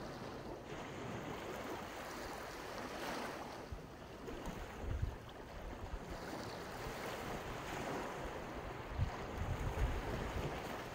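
Sea surf washing onto the beach in a steady hiss, with gusts of wind rumbling on the microphone now and then.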